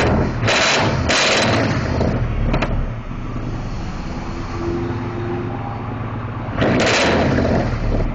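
Car engine with a loud exhaust rumbling at idle, revved hard in three short bursts (about half a second in, around one to two seconds in, and near seven seconds), with a sharp exhaust crack about two and a half seconds in.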